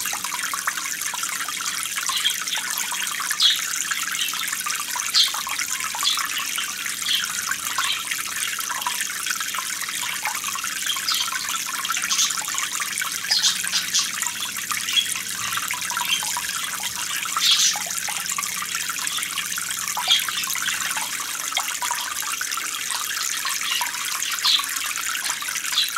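Aquarium water trickling and splashing steadily, with sharp little drips or splashes every second or so and a faint low hum underneath.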